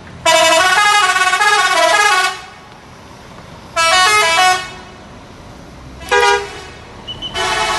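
Telolet multi-tone musical air horn on a tri-axle bus playing a stepping tune of several notes for about two seconds, then a shorter tune, then a brief blast, and near the end a held chord that goes on.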